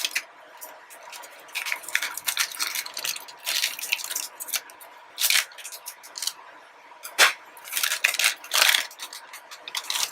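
Crinkling and rustling of a plastic model kit's polybag and runners being handled, in irregular crackly bursts.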